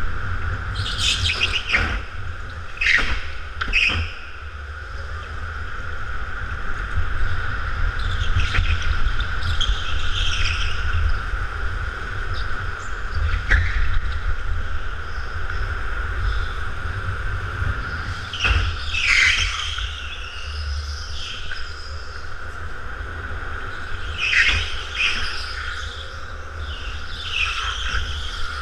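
A go-kart running steadily with a low rumble underneath, heard from on board. Short tyre squeals come several times as it takes the corners of a smooth indoor track.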